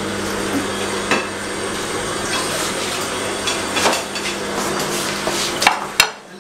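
A ceramic dinner plate knocking and clinking a few times as it is handled, the sharpest two knocks near the end, over a steady rushing noise with a low hum underneath.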